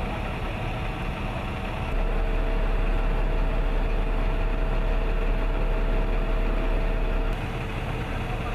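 Fuel truck's engine and fuel pump running steadily at low speed during refuelling, a constant hum that gets louder, with a deep rumble and a steady tone, from about two seconds in until about seven seconds in.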